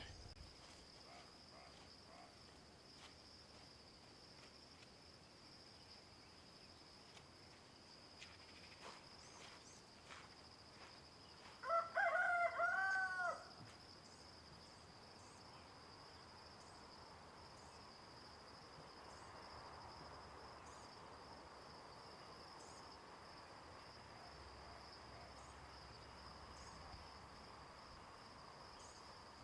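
A rooster crows once, about twelve seconds in, over a steady high-pitched drone of insects.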